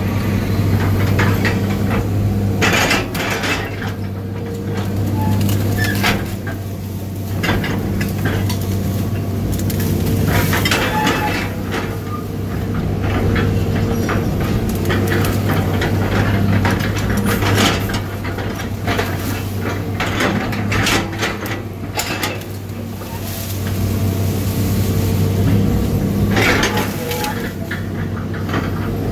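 Skid steer engine running steadily, heard from inside the cab, with repeated cracks, snaps and metal clanks as the grapple grabs and crushes tree limbs and brush.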